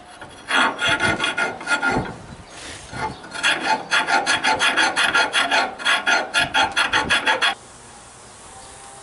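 A round file rasping back and forth inside a steel leaf-spring eye, cleaning out the bore where the old bushing was burned out. A short run of strokes, a brief pause, then quick even strokes, about five a second, that stop abruptly near the end.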